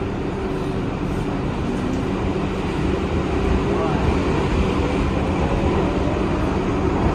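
R62A subway car heard from inside as the train pulls out and picks up speed into the tunnel: a steady rumble of wheels and motors with a few held tones, growing gradually louder.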